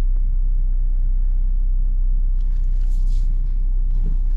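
2014 box truck's engine and road rumble, a steady low drone, with a brief hiss about two and a half seconds in.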